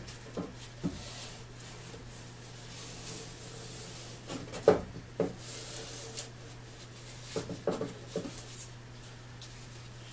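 Blue painter's tape being handled, folded and pressed along the teeth of a steel handsaw blade by gloved hands: rustling and rubbing with a few sharp clicks, over a steady low hum.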